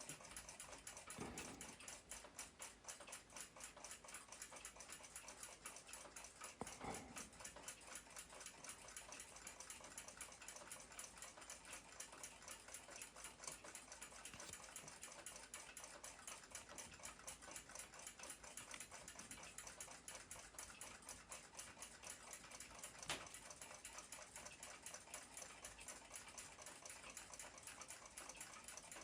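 Faint, fast, even ticking of a mechanical clock escapement, about five ticks a second, with a few soft knocks.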